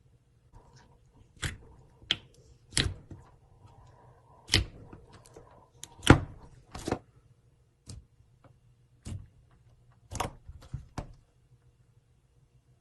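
Slime being squeezed and pressed by hand, giving a string of sharp, irregular clicks and pops as air pockets burst, the loudest about six seconds in.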